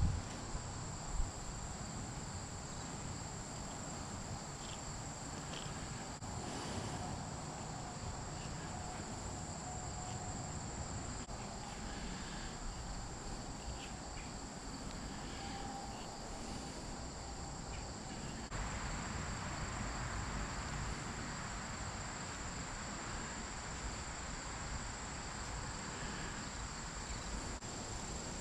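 Steady chorus of insects, a continuous high-pitched drone, over a low background rumble. A soft rustling noise grows a little louder about two-thirds of the way through.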